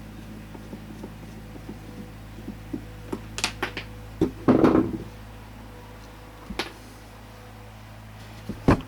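Plastic HVAC heater box being handled during disassembly: scattered light clicks, a louder clatter about halfway through and a sharp knock near the end, over a steady low hum.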